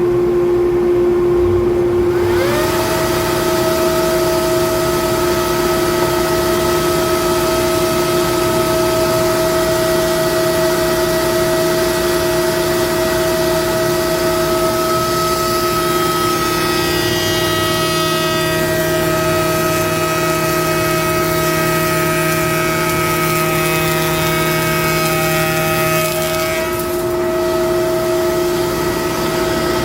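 Wood shaper running with a loud, steady machine whine. About two seconds in, a second tone rises and levels off as a motor comes up to speed, and between about 15 and 27 seconds extra higher tones join while the cutter works the stock.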